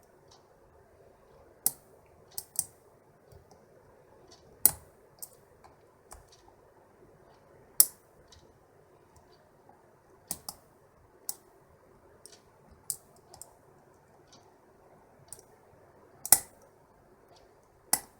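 A 5-pin pin-tumbler lock being single-pin picked with a shallow hook and tension wrench. The pick taps and lifts the pins, giving irregular sharp clicks, about a dozen with uneven gaps, as pins are found binding and set.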